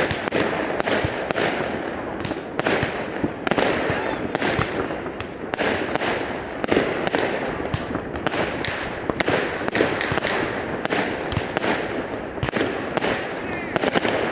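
Fireworks going off in a dense, unbroken barrage of bangs and crackles, several every second.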